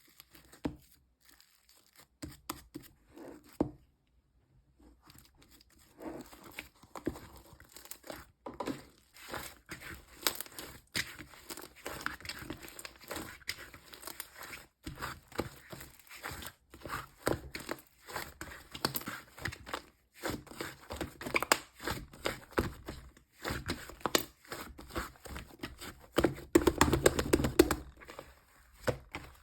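Fluffy cloud clay slime being squeezed, stretched and pulled apart by hand, giving soft crackling, tearing sounds. Only a few faint crackles at first, then steady crackling from about six seconds in, fullest and loudest near the end.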